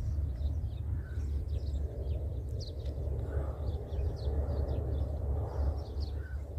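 Outdoor farmyard ambience: frequent short bird chirps over a low, steady rumble.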